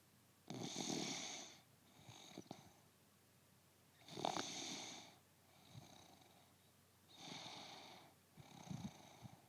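A woman snoring in her sleep: three louder snores about three seconds apart, with softer breaths between them.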